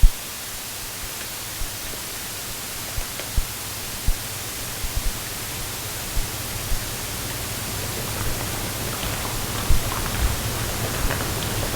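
Steady background hiss with a faint low hum, broken by a dozen or so short, dull low thumps and knocks from a Ziploc bag of pork and marinade being handled.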